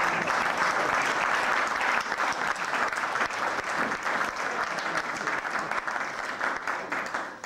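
A roomful of people applauding, many hands clapping at once; the applause dies away near the end.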